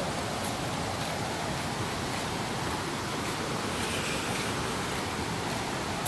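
Steady rushing of a waterfall's falling water.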